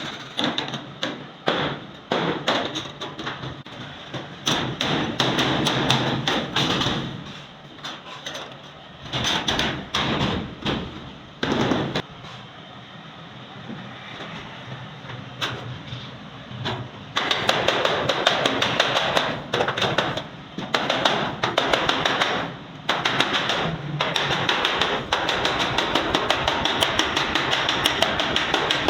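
Hammer blows on sheet steel: scattered strikes at first, then from about halfway a fast, even run of several blows a second.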